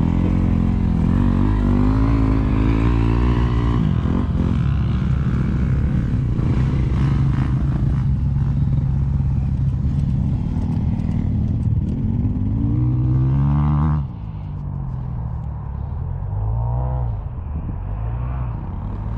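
Dirt bike engines idling, with the pitch rising and falling as the throttle is blipped. The loud, steady running drops off suddenly about two-thirds of the way through, leaving quieter revving.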